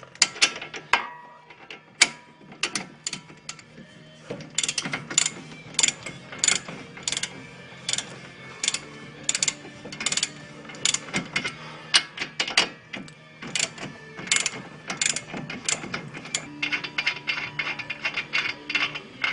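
Socket ratchet clicking as it is swung back and forth, backing out a loosened 22 mm front-suspension bolt. The clicks come about two a second and quicken in the last few seconds.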